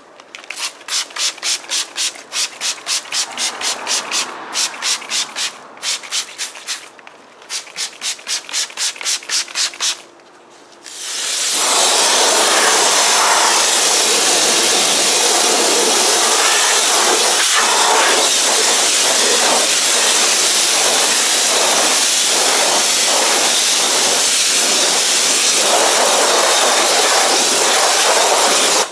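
A brush scrubbing a car wheel in quick rhythmic strokes, about four a second, in several short bursts. About eleven seconds in, a Kärcher K3 Silent pressure washer starts spraying water with a loud, steady hiss that runs until the end.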